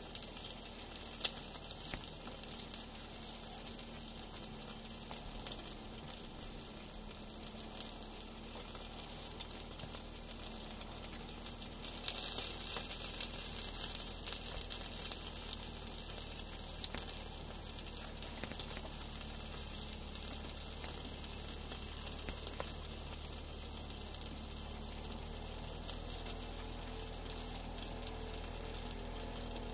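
Food sizzling in a pan on a small wood stove: a steady crackling hiss with fine pops, louder for a few seconds about twelve seconds in.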